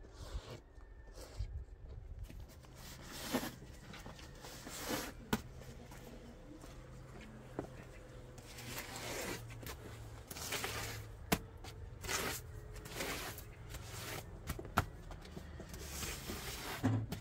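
A broom sweeping snow off concrete steps: a series of brushing swishes, with a few sharp knocks as the broom strikes the concrete. A low steady hum runs underneath.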